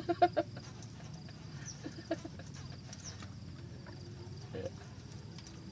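Quiet open-air background with a few faint clicks and taps and short, high chirps every second or two.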